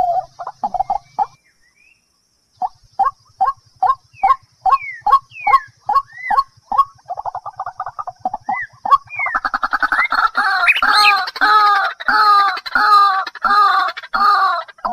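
A bird calling over and over in short, repeated notes, about two a second. There is a brief pause near the start, and from about two-thirds of the way in the calls turn louder and denser.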